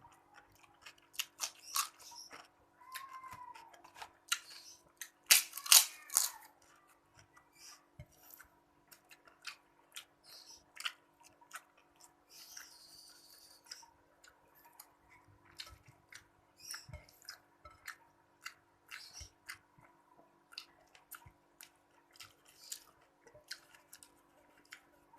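A person eating close to the microphone: chewing and smacking with many short clicks and crunches, loudest in a burst about five to six seconds in.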